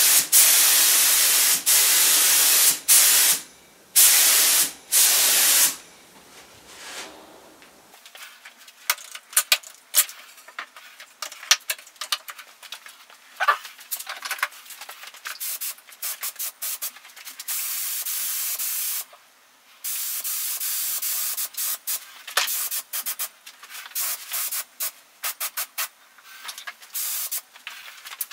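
HVLP paint spray gun spraying the colour coat, a loud hiss in bursts of a second or two with short breaks as the trigger is let go. After about six seconds the spraying stops, leaving scattered clicks and knocks with a few spells of fainter hiss.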